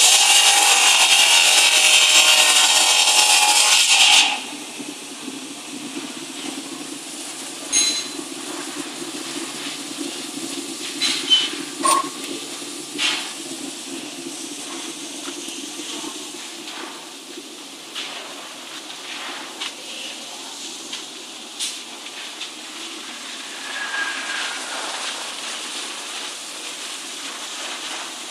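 Tube-making machine running: a loud rasping hiss for about the first four seconds cuts off suddenly, leaving a steady low hum with scattered clicks and knocks from the machinery.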